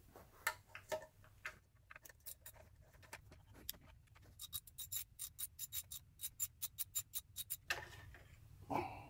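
Hand ratchet with a Torx T30 bit on an extension: scattered metal clicks as the tool is put together and set on the bolt, then about halfway through a run of quick, even ratchet clicks, some five or six a second, as it works a mounting bolt of the secondary air pump.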